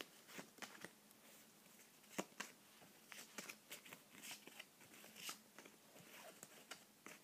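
Faint, scattered small clicks and rustles of trading cards being handled by hand.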